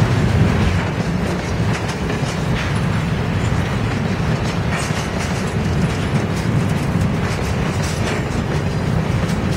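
Train rolling past with a steady rumble, its wheels clicking over the rail joints.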